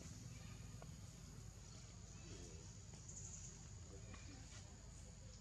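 Near silence: faint outdoor ambience with a steady low rumble, a thin steady high tone and a few faint ticks.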